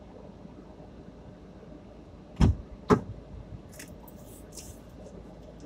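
Two heavy thumps about half a second apart, over the steady low hum of a stationary car's cabin, followed by a few faint clicks.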